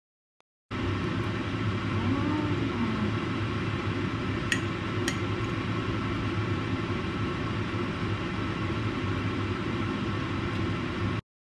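Steady room noise with a low hum, starting and cutting off suddenly. Two light clicks come about half a second apart a little before the middle.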